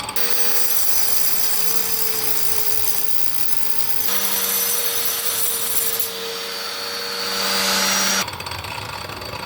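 Angle grinder running with a steady motor whine, its disc grinding through a geode's rock with a harsh hiss. The grinding grows harsher and louder from about six seconds in, then the grinder stops abruptly about eight seconds in.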